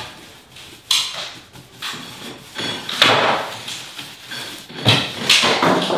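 A paintbrush scrubbing bonding adhesive onto the broken edge of an old plaster wall and the wood lath behind it, in several rough strokes, the strongest about three seconds in and near the end.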